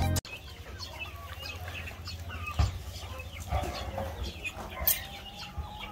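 A flock of backyard chickens clucking and chirping, many short high calls overlapping over a steady low hum, with a couple of louder sudden sounds partway through.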